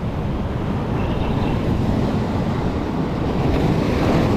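Surf breaking and washing over a cobble beach, with wind buffeting the microphone as a low rumble. A wave surges in louder about three and a half seconds in.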